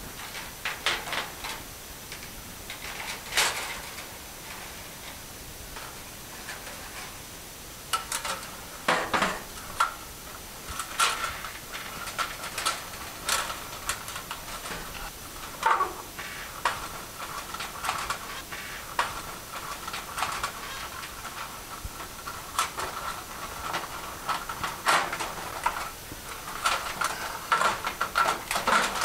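Wires being stuffed into a fluorescent light fixture's sheet-metal wire channel: irregular metallic clicks and clatter, with a scraping rub of metal from about a third of the way in. Near the end the metal channel cover is being fitted into place.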